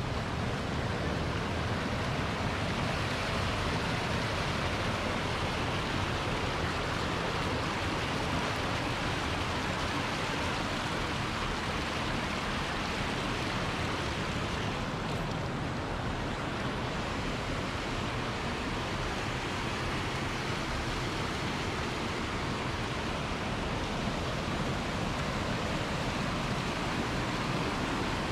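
Stream water flowing and rushing steadily.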